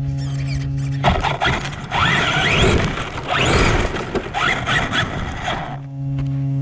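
6S Traxxas Sledge RC monster truck driving off across grass. Its brushless motor and gear drivetrain whine up in pitch several times under throttle, over a rough noise of tyres and chassis. A steady electric hum is heard before it pulls away, about a second in, and again near the end.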